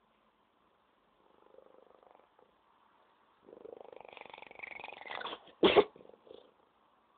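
Domestic cat purring, faint at first, then louder and rougher from about halfway, followed by one sharp, loud sneeze near the end.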